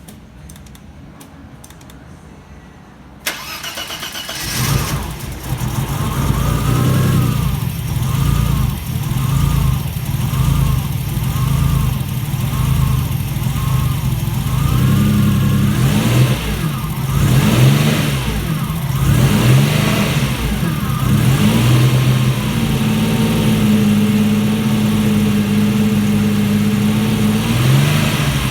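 Alfa Romeo GTV's 2.0 V6 turbo engine starting for the first time after a rebuild: starting abruptly about three seconds in and catching within a second or so. It then keeps running with the revs rising and falling unevenly, not yet fine-tuned after an AFM-to-MAF conversion.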